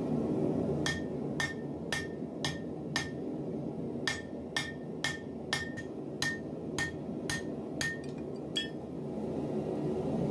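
Hand hammer striking a red-hot steel file laid over a hot cut tool in the anvil's hardy hole, about two ringing blows a second, some fourteen in all with a short pause after the first five, as the file is hot cut in two.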